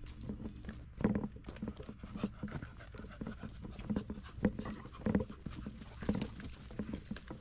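Footsteps on a leaf-strewn dirt forest trail, about two steps a second, with a dog panting close by.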